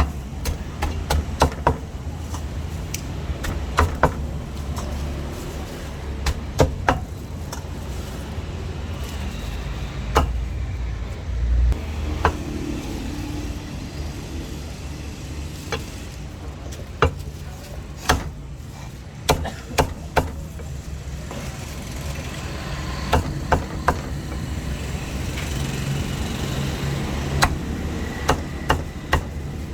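Cleaver chopping roast meat on a chopping block: sharp strikes in irregular runs of one to three, over a steady low traffic rumble.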